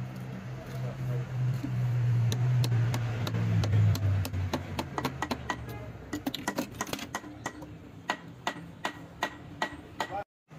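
Sharp metallic taps and clicks from a band-type piston ring compressor and hand tools on a diesel cylinder block while a piston is fitted into its bore and the compressor is released. The clicks grow regular at about three a second in the second half, each with a short metallic ring, over a steady low hum that stops about four seconds in.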